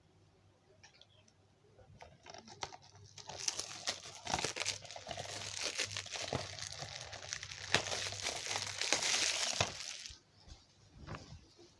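Plastic shrink-wrap being torn and crinkled off a new DVD case, with sharp crackles and a few clicks. It starts faintly, grows louder after a few seconds and dies down near the end.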